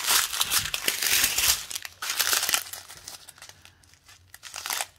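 Small plastic zip bags of diamond painting drills crinkling and rustling as they are handled. Loudest over the first two and a half seconds, then quieter, with a few scattered crackles.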